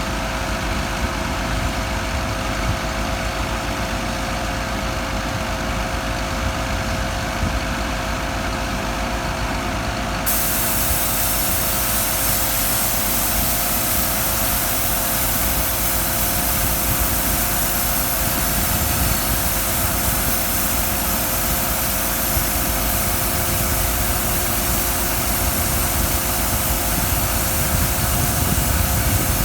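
An engine idling steadily with a constant hum. About ten seconds in, a high hiss comes in abruptly and stays.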